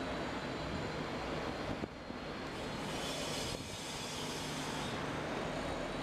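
Steady road traffic noise from passing vehicles, with a brighter hiss swelling from about two and a half to five seconds in as one passes close.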